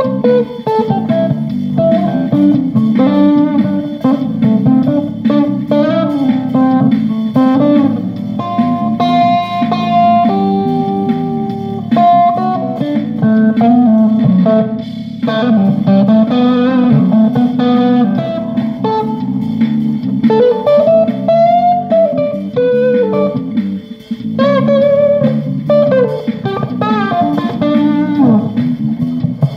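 Electric guitar played as a solo jam: single-note lead lines over a steady low accompaniment, with a few long held notes about a third of the way in and a string bend rising and falling about two-thirds of the way in.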